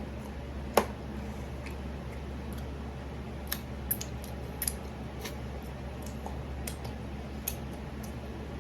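Close-up eating sounds: scattered sharp, wet clicks and smacks of chewing chicken wings, the loudest about a second in, over a steady low hum.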